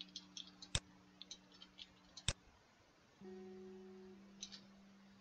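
Computer mouse clicking a handful of times, two of the clicks sharper than the rest. Underneath, faint background music holds soft low notes that change about three seconds in.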